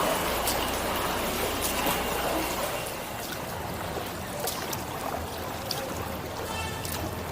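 Water trickling and dripping off a kayak paddle as it dips into the canal, with scattered small splashes and clicks. It is louder for the first three seconds, then settles quieter.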